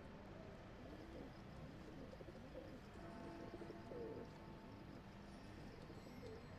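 Pigeon cooing softly: a run of low notes, each rising and falling, about two a second.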